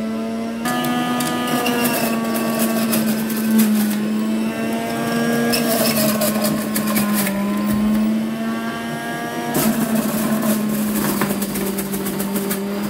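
Electric centrifugal juicer running with a steady motor hum whose pitch sags and recovers as carrots are pushed down the feed chute, the produce crackling as it is shredded in two stretches.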